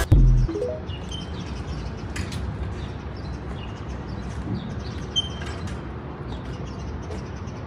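Steady low background rumble with a few faint, brief high chirps scattered through it.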